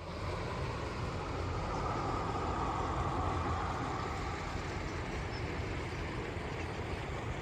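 Steady rumble and hiss of a vehicle on the road, swelling slightly a couple of seconds in and then easing.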